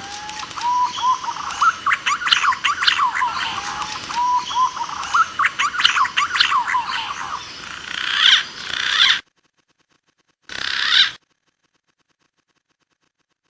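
Green pigeon (punai) calls from a bird-lure recording: many overlapping rising and falling whistles and quick chirps. The sound cuts off suddenly about nine seconds in, returns in a brief burst near eleven seconds, then goes silent.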